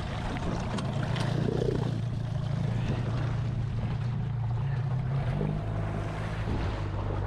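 Small boat's outboard motor running steadily, a low even hum with a noisy hiss of water and air over it.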